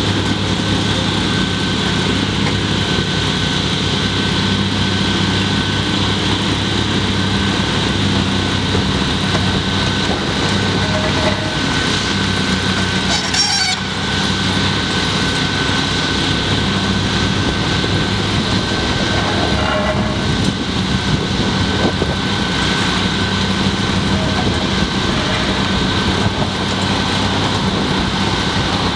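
Hydraulic excavator's diesel engine running steadily under load during demolition work, with a steady high whine held over the engine drone.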